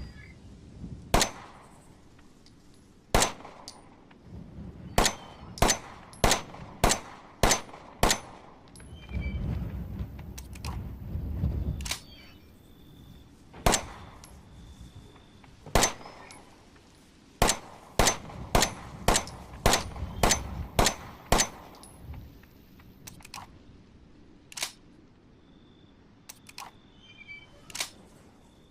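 Glock 17 9mm pistol firing, with sharp, ringing cracks. Two spaced single shots open each of two rapid strings of six to eight shots, the shots in a string coming less than a second apart. A few fainter cracks follow near the end, and a low rumble is heard between the two strings.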